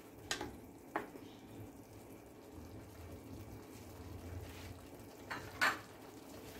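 Faint simmering of fava beans in salsa verde in a clay cazuela, with a couple of soft clicks about a second in and a short, sharper tap near the end, the loudest sound here.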